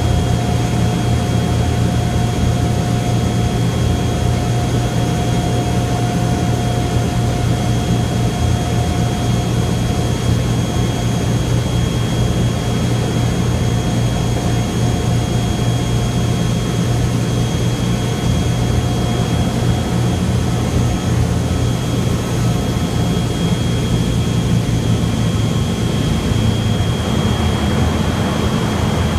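Boeing B-29 Superfortress's four Wright R-3350 radial piston engines and propellers droning steadily inside the forward cabin on final approach, with a thin high whine over the low drone. The drone changes slightly near the end as the bomber touches down on the runway.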